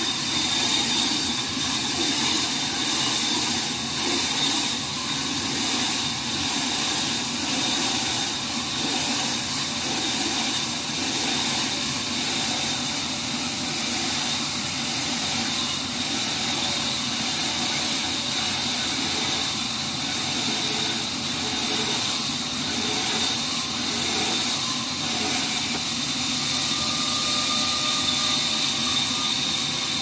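Horizontal band sawmill running steadily as its blade cuts through a teak log fed on the rail carriage. A constant high whine sits over the machine's drone.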